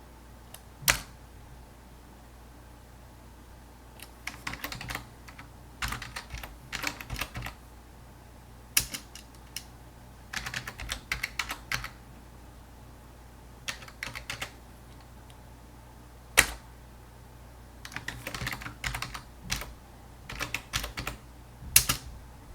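Typing on a computer keyboard in short bursts of keystrokes, with a few single louder key strikes between them, over a low steady hum.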